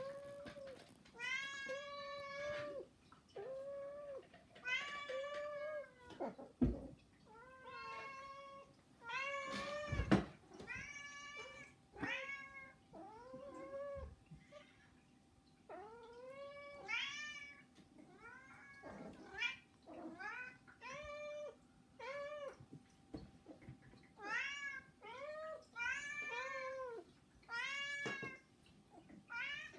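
House cats meowing for food: a steady string of short, insistent begging meows, about one a second, with calls at different pitches sometimes overlapping. Two sharp knocks come about 7 and 10 seconds in.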